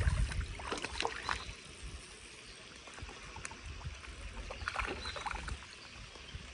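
A hooked fish splashing and thrashing at the water's surface as it is played to the bank and netted, in two bouts of splashing, about a second in and again around five seconds in.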